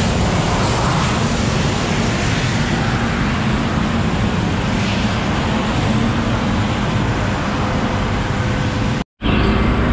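Loud, steady engine drone with a wash of noise over it. It drops out completely for a moment about nine seconds in, then comes back.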